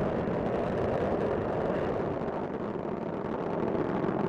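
Space Shuttle Discovery's solid rocket boosters and main engines firing in ascent: a steady, dense rocket noise without a break, easing slightly around the middle and building again near the end.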